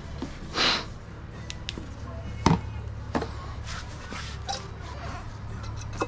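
Gloved hands handling a motorcycle rear wheel at its hub and sprocket: scattered light clicks, a brief rustle about half a second in, and one sharper knock about two and a half seconds in, over a steady low hum.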